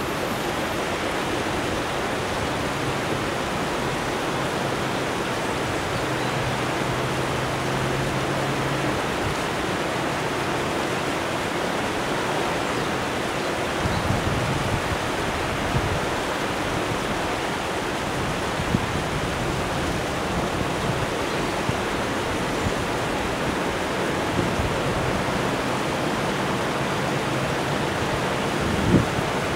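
Mountain river rushing steadily through the gorge, with a few brief faint knocks.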